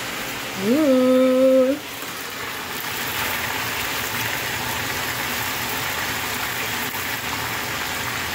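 A woman's voice holds a short single note, rising and then steady, about half a second in. Then beef chops sizzle steadily as they fry in shallow oil in a pan.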